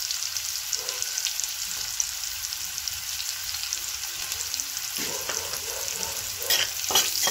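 Potato, onion and pumpkin peel sizzling in hot mustard oil in a kadhai: a steady crackling fry, with a few sharper clicks near the end.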